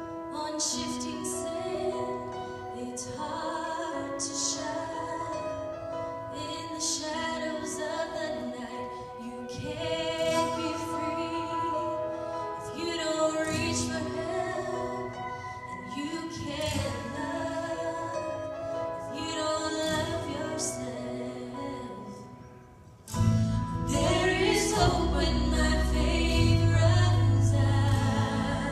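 Female gospel duet in a church: one woman sings alone over a steady accompaniment, and by the end both are singing. About 23 seconds in, after a brief lull, the accompaniment comes in suddenly louder with heavy bass.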